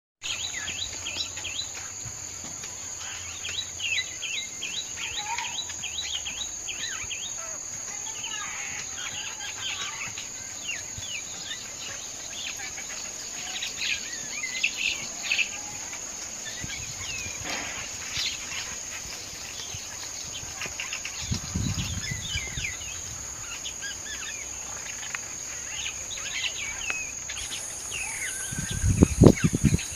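Rural outdoor ambience: a steady high-pitched insect drone with many short bird chirps and calls over it. Brief low rumbles come twice, about two-thirds of the way through and near the end.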